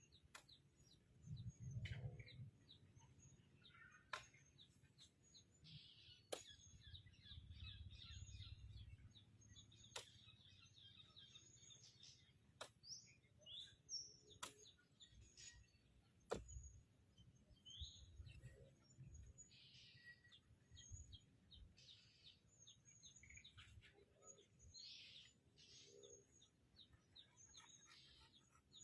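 Faint chirping of small birds, many short calls throughout, with occasional sharp clicks and a few low rumbles.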